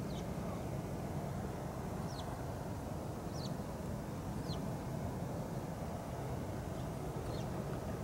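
Steady low background rumble, with a bird's short, thin, falling high-pitched call heard about five times, a second or two apart.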